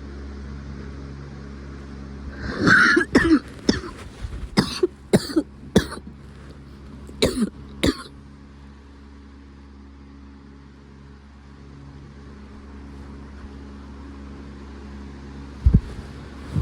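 A fit of repeated harsh coughs, about eight in a row over some five seconds, starting a couple of seconds in. A steady low hum runs underneath, and a single low thump comes near the end.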